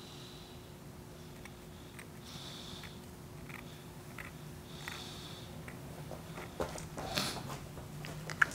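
Metal dental scaler scraping tartar off a Labrador's canine tooth: short, faint scratchy strokes about every two and a half seconds, with small clicks of metal on tooth between them.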